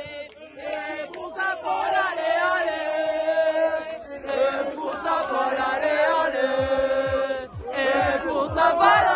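Group of football supporters chanting together, many voices singing a sustained chant. A regular low beat joins in about two-thirds of the way through.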